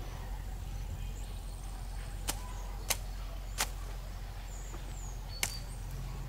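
Four sharp, short cracks at uneven intervals over a steady low hum.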